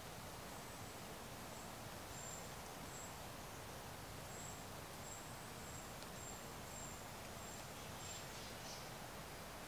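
Quiet forest ambience with a small bird's faint, high, thin call notes, about a dozen short ones at uneven intervals.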